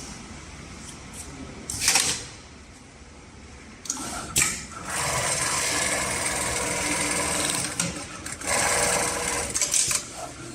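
HIGHTEX MLK200-3020 industrial pattern sewing machine. A sharp burst of noise comes about two seconds in and a few clacks near four seconds, then the machine starts stitching at about five seconds and runs steadily, dipping briefly near eight seconds.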